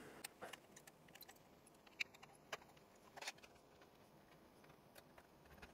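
A few faint, sharp metallic clicks and taps from a small laptop hard-drive mounting bracket and its tiny screws being unscrewed and handled, the clearest about two and three seconds in; otherwise near silence.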